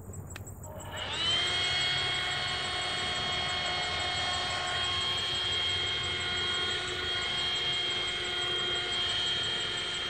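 Handheld cordless vacuum switched on about a second in, its motor spinning up to a steady high whine as it sucks up honey bees from a beehive for a mite sample.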